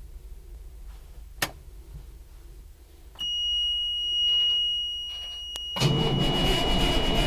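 A steady high-pitched warning buzzer comes on in the cab of a 1984 M923 army truck about three seconds in. Near the end the starter begins cranking the truck's cold Cummins 855 six-cylinder diesel, with the buzzer still sounding over it.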